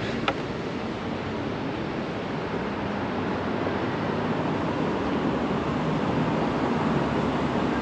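Steady outdoor rumble and hiss of an urban construction site and city background, with no single machine standing out; it grows slightly louder toward the end.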